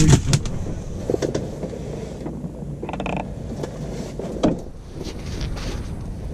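Mechanical clicks and creaks from fishing gear being handled, with a short whir about three seconds in.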